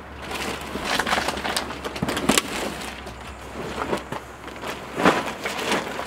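Black plastic trash bag rustling and crinkling as it is handled and pulled out of a plastic barrel. The rustles come unevenly and are loudest about two seconds in and again near the end.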